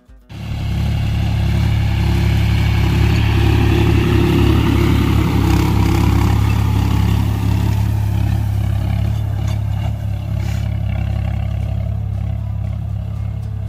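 John Deere 5045D tractor's three-cylinder diesel engine running steadily under load while it pulls a rigid cultivator through stubble. It cuts in suddenly at the start and grows a little fainter in the second half as the tractor moves away.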